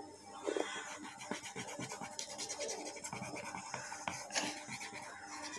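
Felt-tip sketch pen scratching over paper in quick, uneven back-and-forth strokes as a small cut-out is coloured in.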